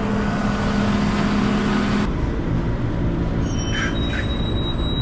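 Diesel tractor engine running steadily while pulling a forage loader wagon across the yard. A steady hum drops away about two seconds in, leaving the engine noise.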